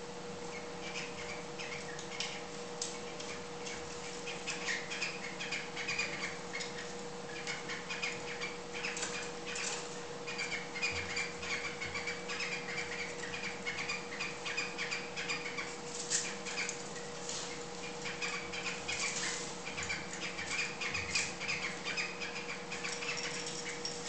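Cockatiels mating, with rapid, repeated chirping and twittering and some wing flapping, over a steady hum.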